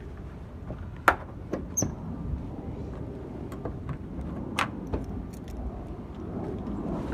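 Loose items being picked up and handled: a few sharp clicks and knocks, one with a brief metallic clink, over a low background rumble.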